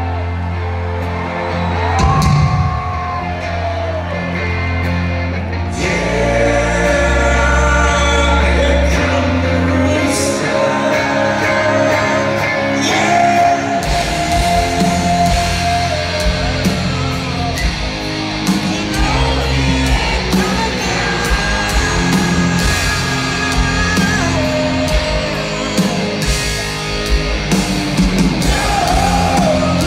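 Rock band playing live, with sung vocals over distorted electric guitars, bass and drums, heard from within the audience.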